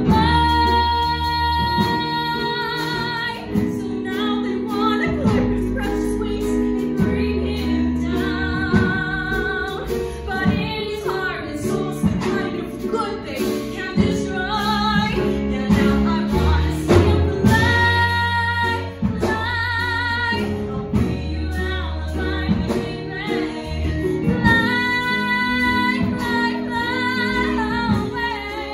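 A woman singing a slow musical-theatre song solo, holding long notes with vibrato, over an instrumental accompaniment of sustained low notes and chords.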